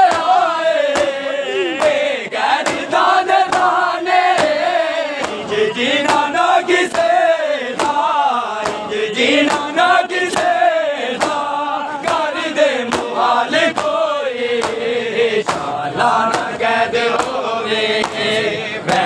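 A crowd of men chanting a Punjabi noha in unison, with a steady beat of hands striking chests (matam) running under the chant.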